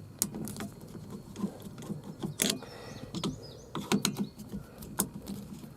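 Irregular small clicks and taps of a hand tool working the screws out of a plastic steering column cover.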